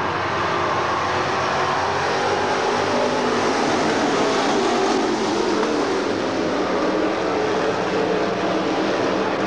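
A field of IMCA stock cars racing around a dirt oval, their V8 engines running hard together in a steady, loud mass of engine noise.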